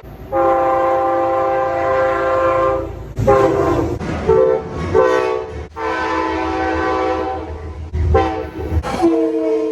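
Locomotive air horns blowing a series of blasts from different trains cut together: a long chord blast to about three seconds in, several short blasts, another long blast from about six to eight seconds, a short one just after, and a new horn starting near the end. The low rumble of the moving trains runs under the horns.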